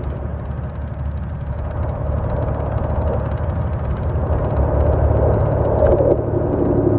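Steady low rumble of a running engine, with a constant hum of several held low tones.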